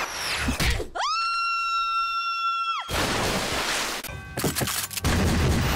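A steady high tone held for about two seconds, bending up as it starts and down as it stops, then television static hiss.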